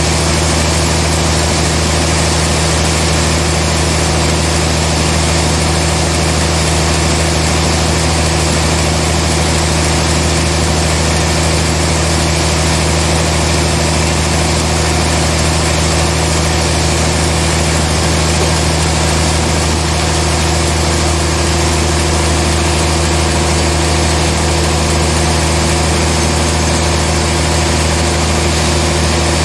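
Large band sawmill running, a steady loud machine hum with a constant whirring noise over it, unchanging throughout.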